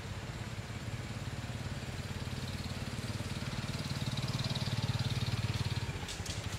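A small engine idling steadily with a fast, even pulse, growing a little louder about four seconds in.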